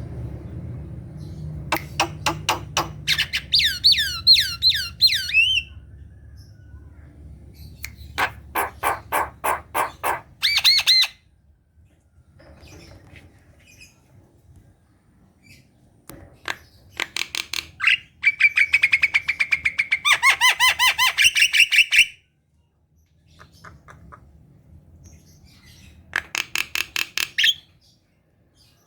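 Javan myna (jalak kebo) singing in separate phrases: quick runs of harsh repeated notes, a series of falling whistles, and a longer busy chattering phrase, with short pauses between.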